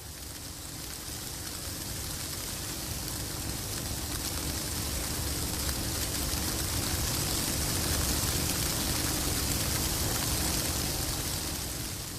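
Snowstorm wind: a steady rushing hiss with a low, fluctuating rumble that fades in and slowly grows louder.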